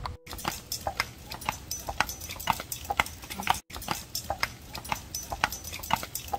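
Shod hooves of a carriage horse clip-clopping on a paved road at a walk: an uneven run of sharp hoof strikes over a low rumble, broken by two brief gaps.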